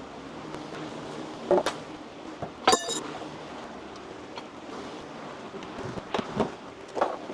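Metal parts being handled and set down: scattered knocks and clanks, with one clink about a third of the way in that rings briefly, over a steady background hiss.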